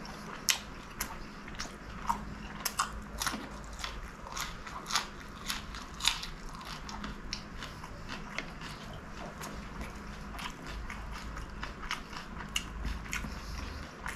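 Close-miked chewing of fried chicken samosa: crisp pastry crunching and wet mouth clicks, irregular, with a few louder crunches in the first half.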